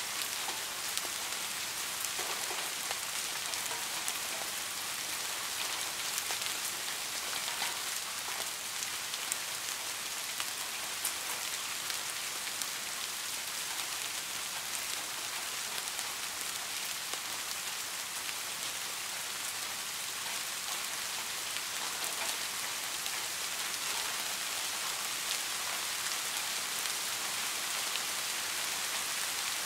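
Steady rain: an even hiss dotted with many small ticks of falling drops.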